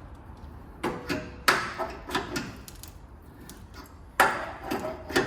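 Sharp metallic knocks and clunks from a thread tap and its driver being worked into a bolt hole, in two clusters: one starting about a second in and another near the end.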